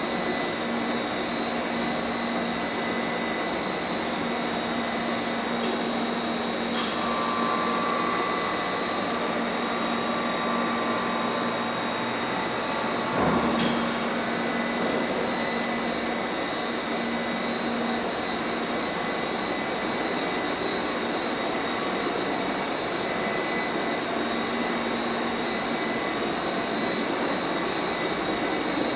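Kawashima RA-X screw-type compost turner running, a steady mechanical whine over a hum. A higher tone joins for several seconds, and a short knock comes about halfway through.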